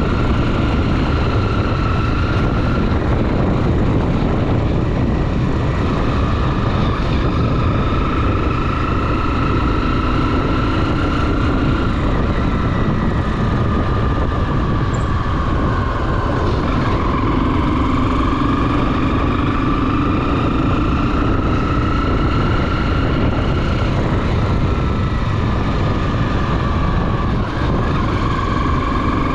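Honda XR 250 Tornado's single-cylinder four-stroke engine running under way at steady cruising revs. Its pitch sags about halfway through, then climbs back up.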